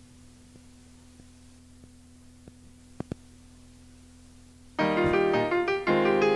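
Faint cassette tape hiss with a low steady hum and a few small clicks in the gap between songs. About five seconds in, the keyboard intro of the next children's song starts, playing a tune.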